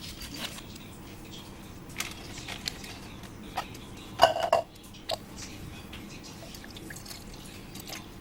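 Kitchen utensils and dishes clinking and tapping: scattered light clicks, with one louder ringing clink about four seconds in.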